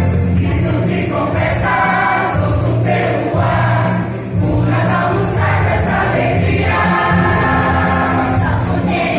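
A church choir singing a Christmas cantata over steady instrumental accompaniment.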